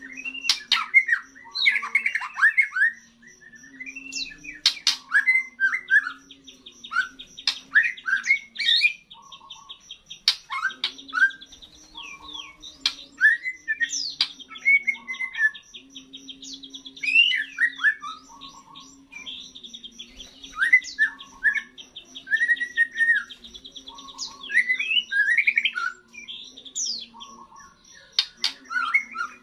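Young white-rumped shama (murai batu), just through its moult, singing a varied, broken run of whistles, chirps and sweeping notes. A rapid even trill comes and goes behind it, over a faint low hum.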